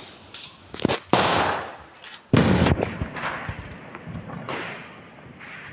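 Firecrackers going off: a few sharp bangs, the loudest a little over two seconds in, each dying away in a short fading tail.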